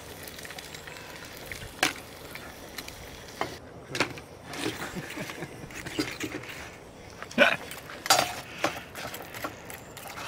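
Frozen eggs being cracked against the rim of a small metal camp frying pan and a utensil clinking and scraping in the pan: a scatter of sharp knocks and clicks, the loudest about seven and a half seconds in.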